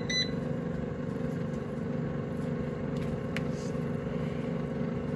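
Power XL Vortex air fryer's fan running with a steady hum while it preheats. A single short control-panel beep sounds right at the start, with a couple of faint clicks about three seconds in.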